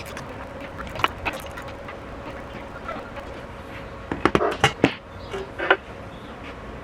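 Hand tools and metal engine parts clinking and knocking during an engine teardown: a couple of clicks about a second in, then a quick run of sharp knocks a little past the middle and one more shortly after, over a faint steady hum.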